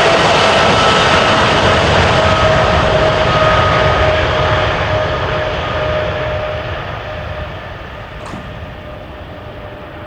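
Jet engines of a Boeing 777-200ER at takeoff power: a loud, steady roar with a faint whine that falls slightly in pitch. The sound fades steadily over the second half as the aircraft moves away.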